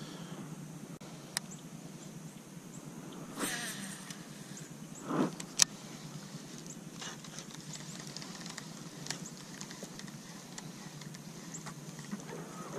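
Handling of a baitcasting rod and reel: a few sharp clicks, the loudest about five and a half seconds in, and two short rushing sounds a little before it, over a steady low hum.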